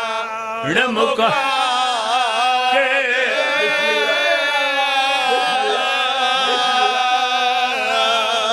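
Men singing a mourning lament in chorus: a lead reciter at a microphone with several men joining him, holding long, wavering melismatic notes with heavy vibrato.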